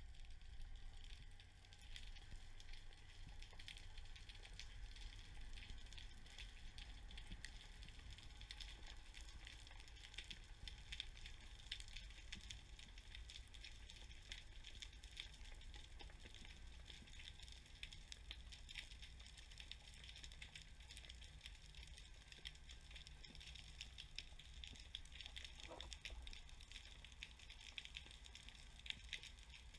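Faint underwater crackling and clicking, the reef noise of snapping shrimp, over a low steady rumble.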